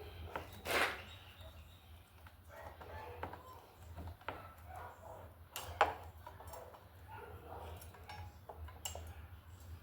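Scattered clicks and knocks of metal parts as new brake pads and the caliper are worked into place on a motorcycle brake, over a low steady hum. The loudest knocks come about a second in and about six seconds in.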